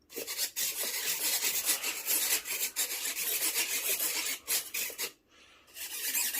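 Repeated rasping strokes of hand sanding, worked quickly back and forth, with a short break about five seconds in before the strokes start again.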